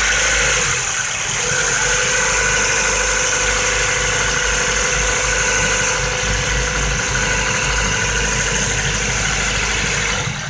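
Ford Focus 1.6-litre engine running steadily at a fast idle around 1,500 rpm with a knock in it, which the owner takes most likely for worn piston pins needing an engine rebuild.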